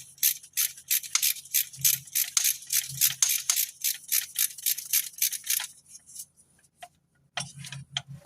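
Ratchet wrench clicking at about four clicks a second as it backs out a long bolt holding a small tin bracket; the clicking stops a little over halfway through, with a few more clicks near the end.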